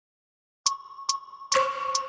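Silence, then about two-thirds of a second in, a background music track starts: a bell-like electronic tone struck about twice a second in a steady rhythm.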